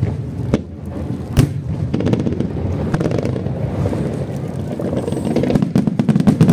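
Fireworks going off: a couple of single sharp bangs, then a quick run of crackling reports about five and a half seconds in, over a steady low rumble.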